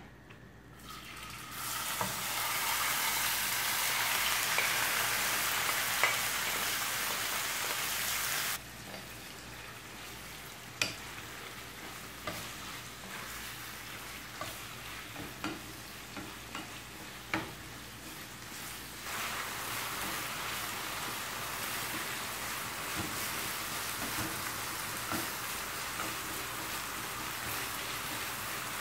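Minced meat sizzling in hot oil in a frying pan, stirred and broken up with a wooden spatula that scrapes and taps the pan. The sizzle starts about a second in as the meat goes into the oil, drops suddenly about a third of the way through, and grows again later.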